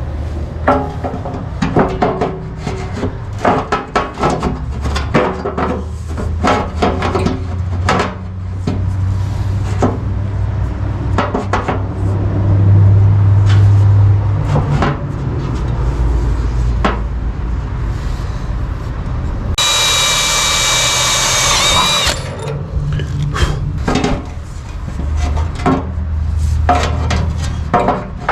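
Irregular knocking, clicking and rubbing of parts and hand tools while a fan shroud is fitted. About two-thirds of the way through, a power drill whines for about two seconds, its pitch dropping at the end as it drives a screw home.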